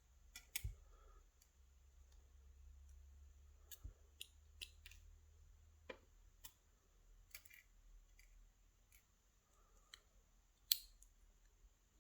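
Small metal tools handling tiny lock pins and springs: a dozen or so faint, sharp clicks and taps at irregular intervals, the loudest near the end.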